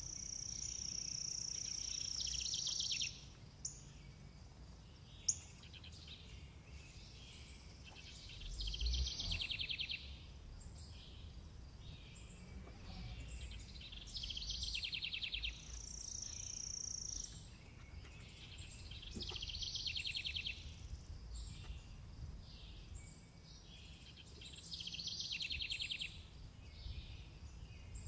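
A songbird singing short repeated phrases of fast high trills and whistled notes, a new phrase every few seconds, over a low steady outdoor background noise. Two sharp clicks sound about four and five seconds in.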